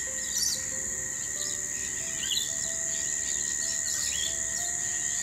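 Steady high-pitched drone of evening insects, with short bird chirps scattered over it about once a second.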